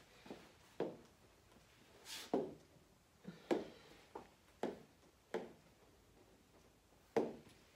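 Fingers tapping and pressing on a large interactive touchscreen: about eight short, uneven knocks and taps.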